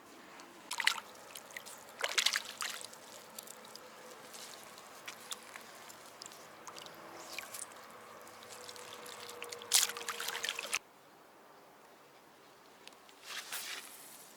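Water splashing and trickling in a few short bursts, with a faint steady hiss between them, typical of a freshly caught fish being handled at the water's edge.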